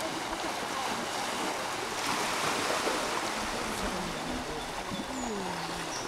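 Shallow surf washing steadily over a beach, with juvenile northern elephant seals giving a few low, falling calls in the second half while two spar open-mouthed in the water.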